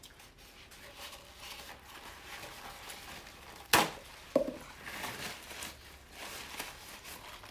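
Mouth sounds of someone eating lobster tail close to the microphone, with two sharp clicks about half a second apart a little past halfway.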